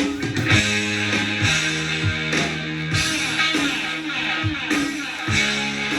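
Hard rock song playing from a vinyl record: electric guitar, bass and steady drum hits, coming in suddenly at the start.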